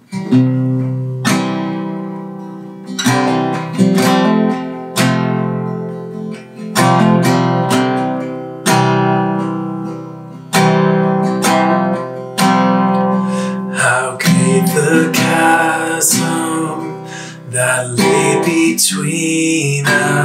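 Steel-string acoustic guitar strummed, one sharp chord every second or two that rings out and fades before the next, playing the intro to a worship song.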